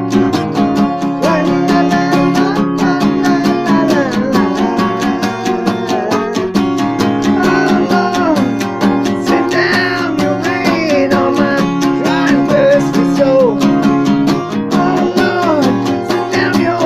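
Acoustic guitar strummed in a steady rhythm, with a wordless vocal line rising and falling over it at times.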